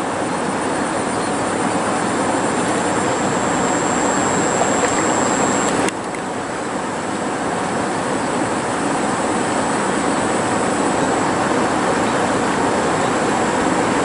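Steady rushing of river water, an even noise without gusts, with a thin high whine on top that fades about six seconds in.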